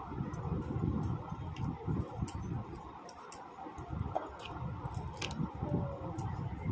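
Vegetables being cut against a bonti, the fixed upright blade of a Bengali floor cutter: an irregular run of soft cutting strokes and small clicks over a steady background hum.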